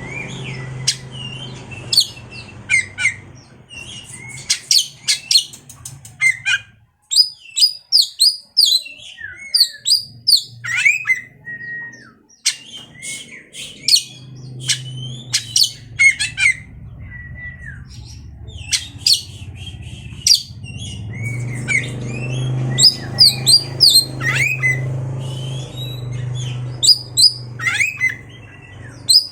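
Oriental magpie-robin (kacer) singing: a long, varied run of sharp chipping notes, harsh squawks and short whistled phrases, with brief pauses, over a low steady hum.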